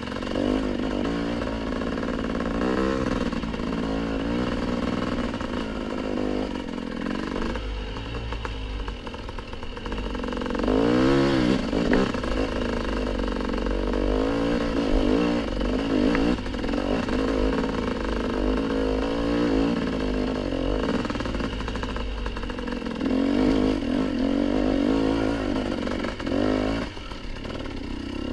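Dirt bike engine on the move, revving up and falling back again and again as the throttle is worked, with a sharp climb in revs about eleven seconds in.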